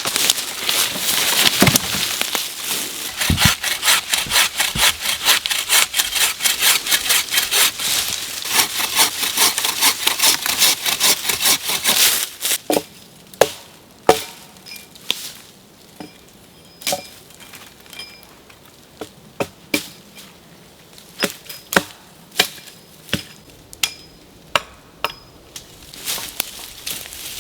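Homemade bow saw cutting through wood with quick, regular back-and-forth strokes for about twelve seconds, then stopping. It is followed by scattered single sharp knocks and snaps of wood.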